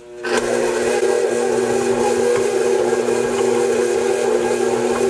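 Electric mixer switched on about a quarter second in, its motor then running at a steady speed with a whine and hiss as it beats thick fruitcake batter with candied fruit and pecans.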